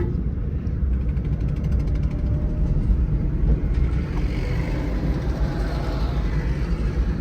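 Massey Ferguson 5900 tractor running steadily as it drives along the road, with a heavy low rumble.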